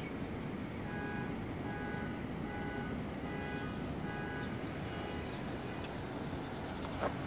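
Steady hum of distant city traffic heard from a height. Over it, a row of six or seven short, evenly spaced beeps comes about three-quarters of a second apart, starting about a second in.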